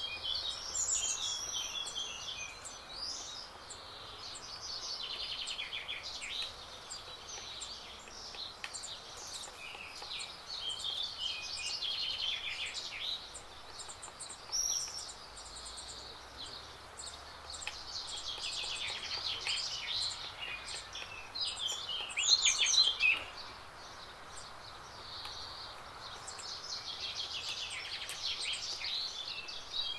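Songbirds singing in a garden: repeated phrases of fast chirps and trills, several overlapping, over a faint steady background hiss, with one louder burst about three-quarters of the way through.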